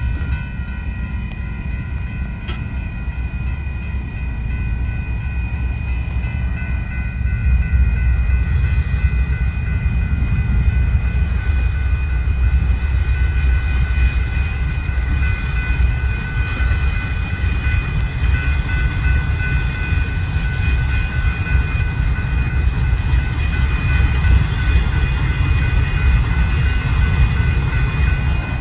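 Diesel engines of two GE AC4400CW locomotives rumbling as a freight train approaches slowly, growing louder from about eight seconds in. A steady high ringing from the grade crossing's warning bell sounds over it.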